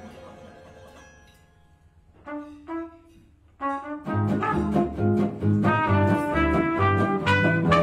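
Live gypsy jazz band: a held chord fades almost to silence, a few short notes sound twice, then from about four seconds trumpet, acoustic guitars and double bass play together over a steady pumping rhythm.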